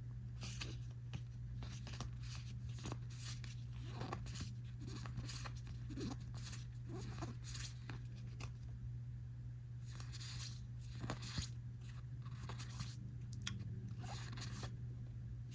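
Crinkling and tearing of foil trading-card booster-pack wrappers and the rustle of cards being handled, in many short sharp crackles over a steady low electrical hum.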